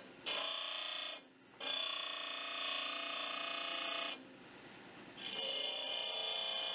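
Stationary disc sander grinding a small painted steel part, the work pressed to the abrasive disc in three passes and lifted off briefly about a second in and again about four seconds in, when only the machine's running hum is left.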